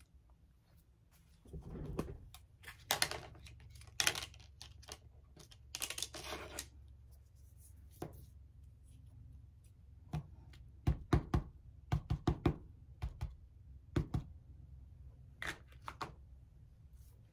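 Knocks, clicks and rustling of craft supplies handled on a cutting mat, with a quick run of light taps past the middle as an ink pad is dabbed against a paper tag.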